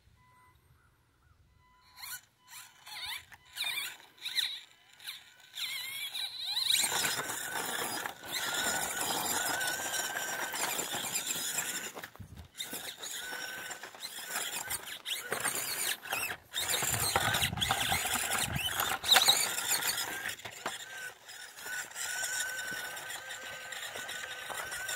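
Axial SCX24 micro RC crawler with an upgraded P90 motor, its motor and gears whining in short throttle blips at first, then running almost continuously from about six seconds in as it crawls over rocks and gravel, with a few brief pauses.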